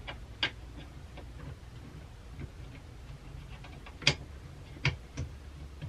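Small plastic parts of a reciprocating saw's handle and trigger switch being handled and fitted: scattered light clicks and taps, with sharper clicks about half a second in, at about four seconds and just before five seconds.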